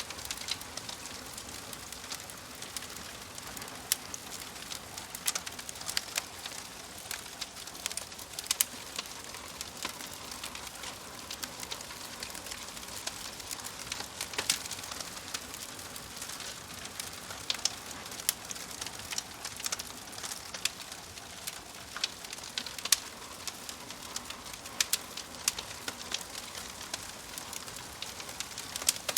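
Wood fire crackling: irregular sharp pops and snaps, several a second, over a steady soft hiss.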